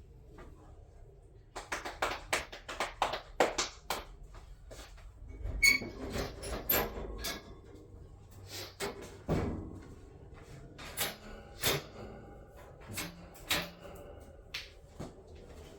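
Irregular knocks, clatters and scrapes of things being handled, in quick runs with short pauses, and a few heavier thuds among them.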